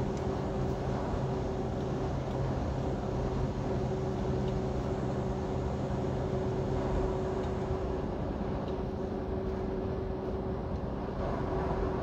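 Semi-truck driving on the interstate: a steady drone of diesel engine and road noise, with a few constant hum tones and no change in speed.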